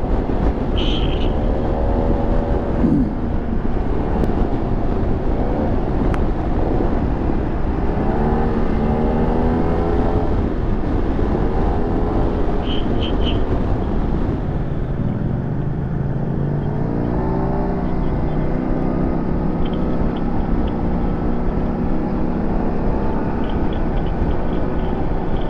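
Yamaha TMAX maxi-scooter engine running on the move, its pitch rising and falling again and again as the throttle opens and closes, over a steady rush of wind and road noise.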